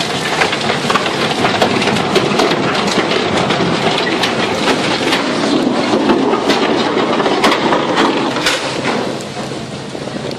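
Steel hull of a container ship grinding and scraping along the concrete wall of a canal lock: a dense, loud scraping noise shot through with many sharp cracks, easing off a little near the end.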